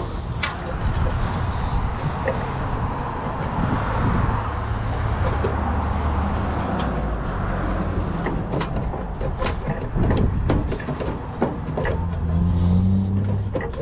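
Road traffic going past, a steady low rumble and hiss that swells a few seconds in and again near the end. Scattered sharp clicks and taps of hand tools on the water heater's metal run through it.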